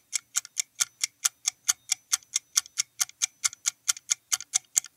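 Clock-style ticking of a quiz countdown timer sound effect, steady and even at about five ticks a second.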